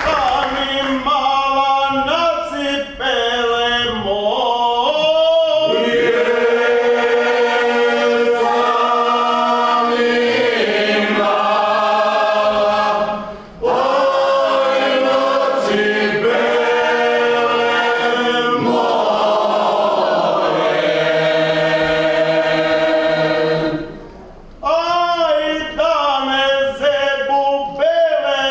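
Small Croatian folk vocal group singing unaccompanied in several parts, in the traditional rural style. The voices hold long, sliding notes in long phrases, broken twice by short pauses for breath.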